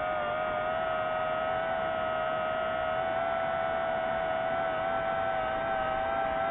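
DJI FPV quadcopter's motors and propellers whining at a steady pitch that wavers slightly, over a rushing hiss.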